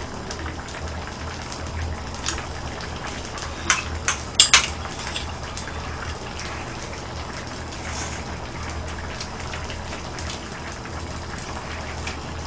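Pork-bone stew bubbling steadily in a pan on a portable gas burner, with a few sharp clinks of a metal spoon or ladle against the dishes about four seconds in.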